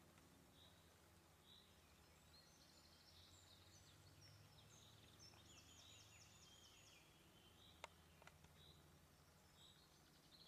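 Near silence: quiet outdoor ambience with faint distant birdsong, short high chirps repeating every second or so and a trill in the middle, and a single faint click about eight seconds in.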